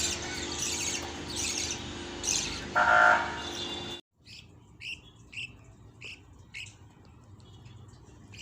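Small pet birds chirping in a quick, repeated high chatter, with one louder, lower squawking call about three seconds in. The sound cuts off abruptly at about four seconds, and fainter single chirps follow.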